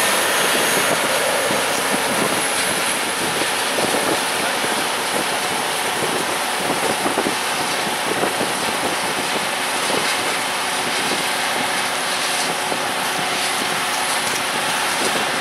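Heavy harvest machinery running steadily at work in a cornfield: a constant, even machine noise.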